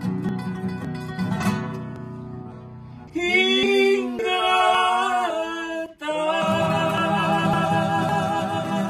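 Two classical nylon-string guitars playing a vals criollo (Peruvian waltz), with single picked notes fading for the first few seconds. About three seconds in, two men's voices come in loudly on a sung line. After a short break about six seconds in, strummed guitars and singing go on.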